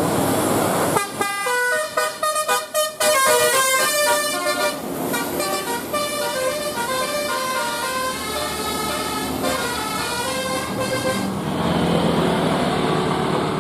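A telolet bus horn plays a melody of quick stepped notes, starting about a second in and stopping near the end, over the steady noise of the running vehicle.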